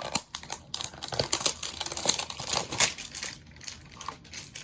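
A cardboard trading-card hanger box and its packaging being torn open by hand: a rapid run of sharp crackles and clicks, thinning out near the end.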